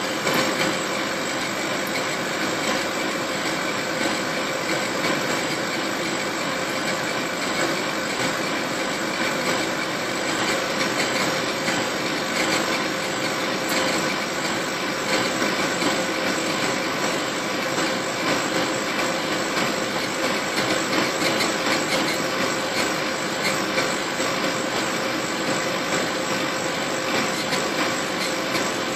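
Laser engraver running while it etches a wine glass turned on its rotary attachment: a steady mechanical whir with a couple of constant tones.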